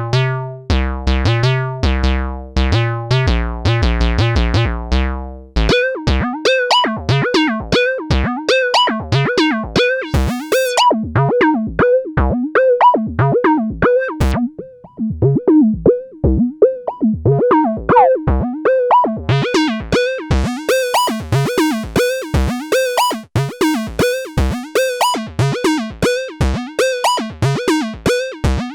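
Korg monologue monophonic analog synthesizer playing sequenced factory presets. A low, buzzy bass pattern plays for the first five seconds or so. Then a different sound takes over: a fast run of short plucked notes that sweep in tone, turning much brighter about twenty seconds in.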